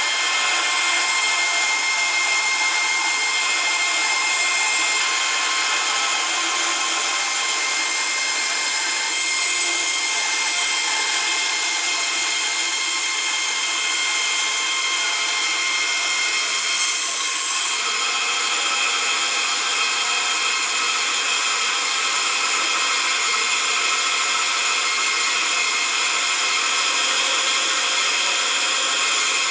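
Bandsaw running steadily and cutting padauk hardwood into knife-handle scales: a constant machine noise with a faint high tone.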